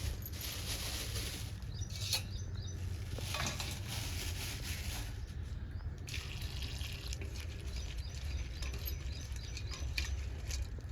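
Water running and splashing in spells of a few seconds, over a steady low rumble.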